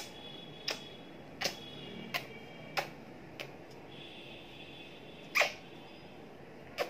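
Sharp taps at uneven intervals, roughly one every 0.7 s with a longer gap in the middle, made by a girl's movements as she dances. The loudest tap comes about five seconds in. A faint, steady high tone sounds under the first second and again around four to five seconds in.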